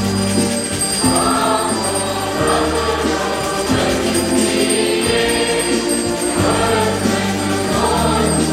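Choir singing a hymn with instrumental accompaniment; the held bass notes change every second or two under the voices.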